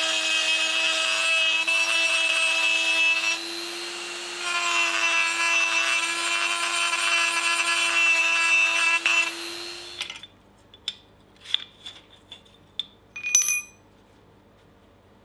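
A handheld rotary tool with a conical grinding bit gives a steady high whine as it grinds into the steel of a ball swage held in a vise. It eases briefly about three and a half seconds in and stops about ten seconds in. A few light metal clicks and taps follow, with one ringing clink near the end, as steel is handled on an anvil.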